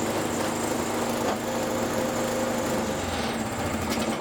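Toro Power Max 724 snowblower's single-cylinder four-stroke engine running steadily. Its carburetor trouble from ethanol fuel has been cured, and it runs well again.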